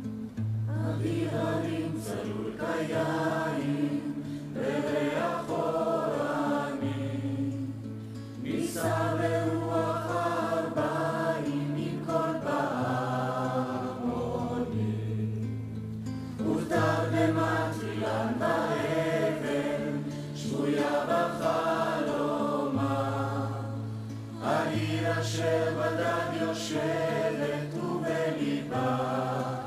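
Background music: a choir singing slow phrases over long held low notes.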